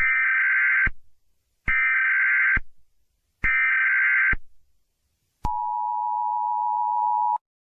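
Emergency Alert System alarm. Three harsh digital data bursts of the SAME header, each just under a second long, are followed by the two-tone attention signal held steady for about two seconds.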